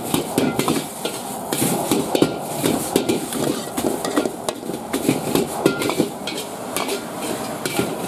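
Metal ladle clanking and scraping rapidly and irregularly against a steel wok as flat rice (pho) noodles are stir-fried, with a steady hiss of frying underneath.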